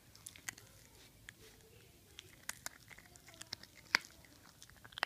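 A small dog chewing a treat held in a person's fingers: quiet, irregular little crunches and clicks, the sharpest about four seconds in.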